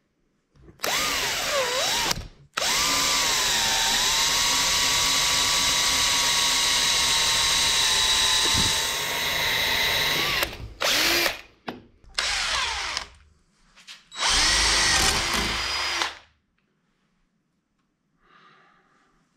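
Power drill boring into the corroded steel pivot pins of a 1968 VW Beetle pedal cluster: a short burst, then one long steady run of about eight seconds, then three shorter bursts, stopping about three seconds before the end.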